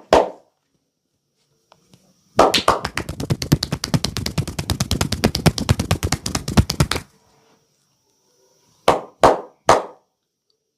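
Percussive massage strokes: hands chopping and slapping rapidly on the body at about ten strikes a second for several seconds, with a pair of sharp slaps just before and three single slaps near the end.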